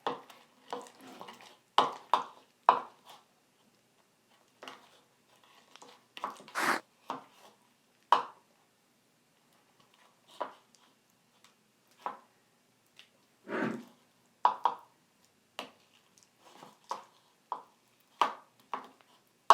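A spoon stirring slime of glue and borax solution in a bowl: irregular short clicks and squelches, roughly one a second. The strongest come about a third of the way in and again past the middle.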